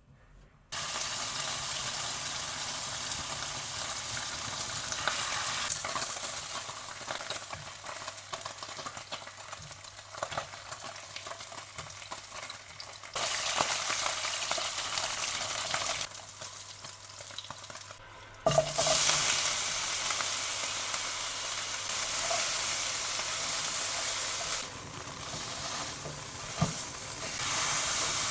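Braised squab deep-frying in hot oil: steady sizzling with crackling pops, cutting between clips so the level jumps abruptly several times.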